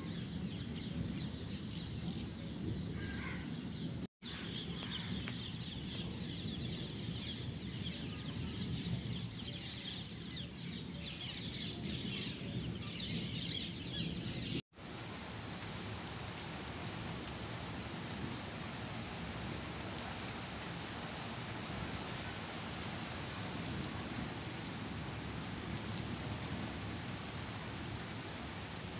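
Steady rain falling. In the first half, birds call over a low rumble. After a brief silent gap about halfway through, only an even hiss of rain is left.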